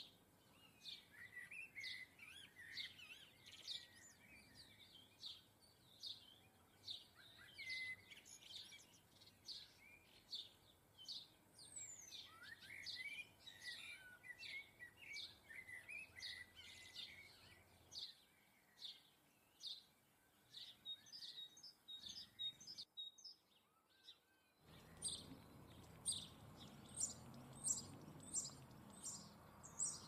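Small garden birds chirping, faint: many quick, short call notes in a busy, overlapping chatter. There is a brief break about three-quarters of the way through, after which the calls are higher and sharper.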